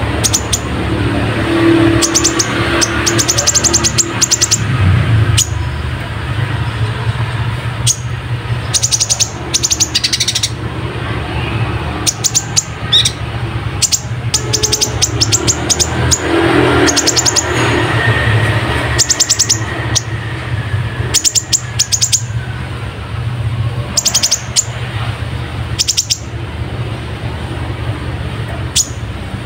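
Kolibri ninja sunbird singing in quick runs of short, sharp high chirps, its song filled with house-sparrow-like chirping. The runs come again and again, with pauses between them, over a steady low rumble.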